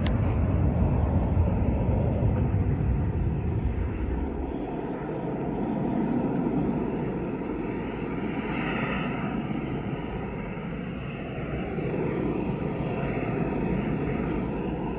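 Jet aircraft engine noise, a steady broad roar with a faint steady whine in it, swelling slightly about eight seconds in.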